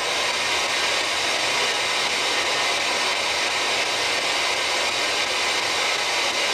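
Steady hiss of radio static from a spirit box, a radio sweeping continuously through stations.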